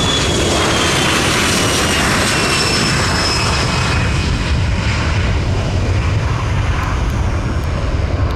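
Boeing 737-300's CFM56 turbofans at takeoff power as the jet rolls, lifts off and climbs away: a steady loud rumble with high engine whines that fall slowly in pitch through the first half.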